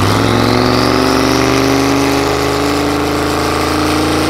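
Turbocharged Corvette V8 held at raised revs on the drag-strip start line, building boost, its note creeping slowly upward. A high whine rises in pitch over the first second and a half.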